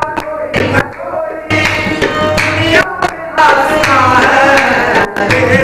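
Qawwali music: voices singing over tabla drumming, the sung line bending up and down in pitch. The music thins briefly about a second in, then comes back in full.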